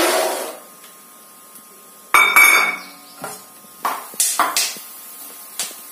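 Peanuts poured into hot oil in a wok, a brief rush of sizzling as they land. About two seconds later a wire-mesh strainer clanks with a ringing ping against the metal wok, followed by several lighter taps.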